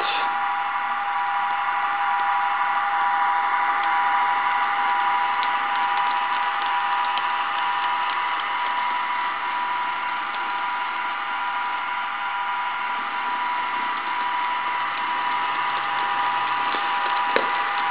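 HO scale model diesel locomotive running at steady speed: its small electric motor and gears give a steady whine made of several high tones over a hiss, with a few faint clicks.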